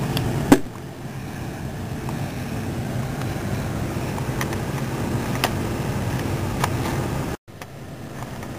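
Handling noise from a handheld camera over a low steady rumble. There is a sharp knock about half a second in and a few faint clicks later. The audio cuts out for a moment near the end.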